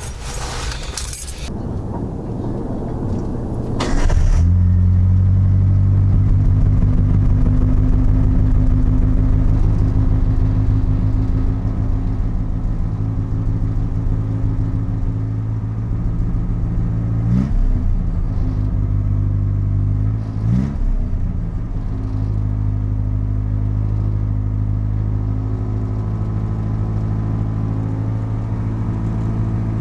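1970 Datsun 521 pickup being started on its newly relocated battery: the starter cranks for about four seconds, then the engine catches and runs at a steady idle, starting a little higher and settling slightly. It is blipped twice, briefly, about halfway through.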